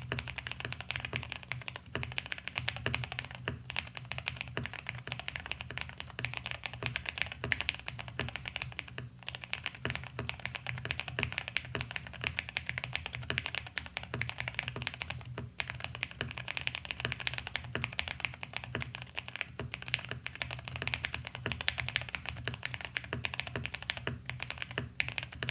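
Fast, continuous typing on a mechanical keyboard with Durock Koala tactile switches, lubed with GPL 205g0 and GPL105, filmed, with 62g springs: a dense, uneven stream of key clacks. A low steady hum runs underneath.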